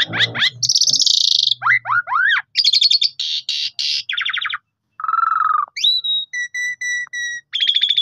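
Javan pied starling (jalak suren) singing a fast, varied song of sliding chatter notes, buzzy phrases and pulsed trills. After a short pause about halfway through come clear whistled notes, one of them held for about a second.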